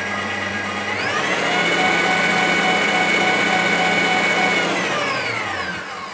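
Electric stand mixer running with its whisk, beating the liquid cake ingredients: its motor whine rises in pitch as it speeds up about a second in, holds steady, then winds down to a stop near the end.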